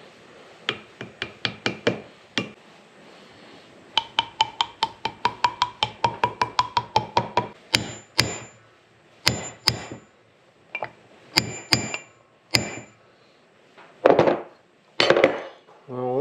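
Hammer driving new bushings into a side-by-side's suspension knuckle through a drift. First comes a run of light taps, then a quicker run of about four taps a second, then several harder metal-on-metal strikes with a high ring. Two duller knocks come near the end.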